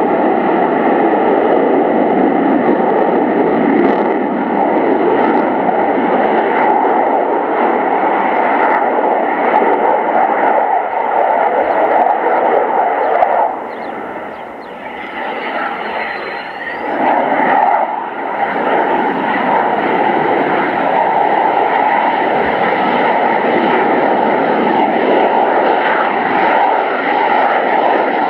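Belgian F-16's Pratt & Whitney F100 turbofan jet engine heard from the ground as the fighter flies display manoeuvres: loud, continuous jet noise that drops away for a few seconds about halfway through and then builds again.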